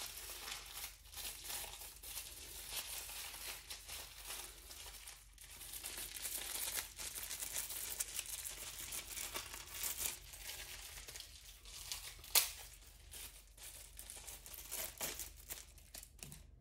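Thin plastic bag crinkling and rustling as a furry microphone windscreen is worked out of it, with one sharp crackle about twelve seconds in.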